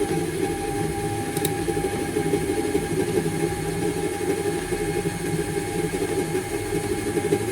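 Portable electric sewing machine's motor running steadily with its foot pedal held down, turning the bobbin winder to fill the bobbin with thread; a constant whirring hum with a steady whine over it.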